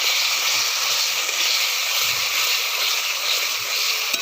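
Spice paste sizzling steadily in hot oil in a pan as it is fried down for a fish-head curry.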